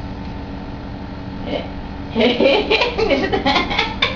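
Steady low room hum, then about two seconds in a person's voice starts up, loud and choppy.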